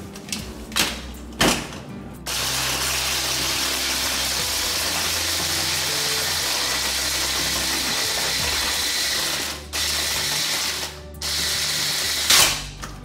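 Small electric food processor, a hand-blender motor on a chopper bowl, crushing ice cubes: a steady grinding rattle of ice against the blades that runs for about seven seconds, then two shorter runs after brief pauses. There are light knocks of handling before it and a sharp knock near the end.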